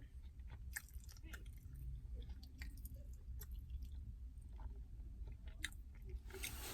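Faint chewing with scattered small mouth clicks close to the microphone, over a low steady hum.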